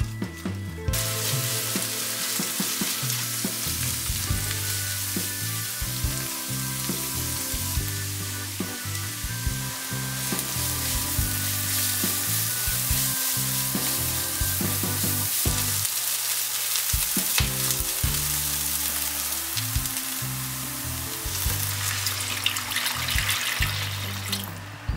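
Diced onion sizzling in hot oil in a frying pan, stirred with a spatula that scrapes and taps the pan, with curry powder being fried in. In the last few seconds the hiss grows louder as water is poured into the hot pan, then stops suddenly.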